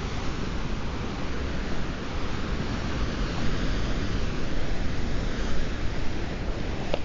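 Ocean surf washing in a steady roar of noise, with wind rumbling on the microphone.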